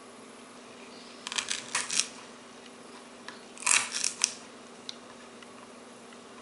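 Knife cutting a peeled cattail rhizome into small pieces on a plastic cutting board: two short clusters of crisp clicks and taps, one about a second in and a louder one about four seconds in, over a faint steady hum.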